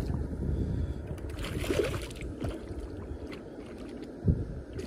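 A hooked bowfin thrashing at the surface against the bank, water splashing and sloshing, loudest in the first second or so and then settling, with a few short knocks.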